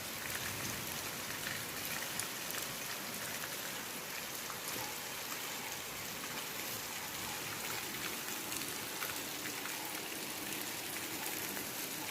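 Heavy rain pouring steadily, with many small ticks of drops hitting surfaces.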